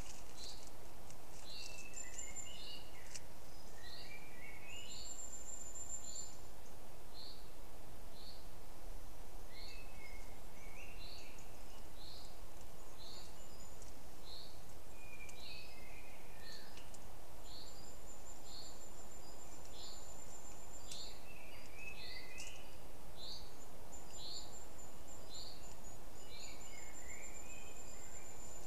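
Woodland birdsong: a small bird repeats a short, high note about once a second, while other birds add lower chirping phrases now and then. A very thin, high, steady buzz comes and goes in stretches, over a faint even hiss of outdoor background.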